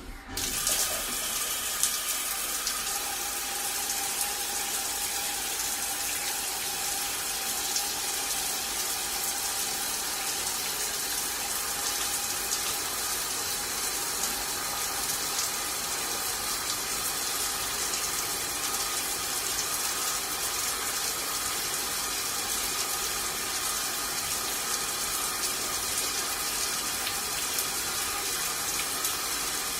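Water running in a steady, continuous flow that starts suddenly at the beginning and holds an even level throughout.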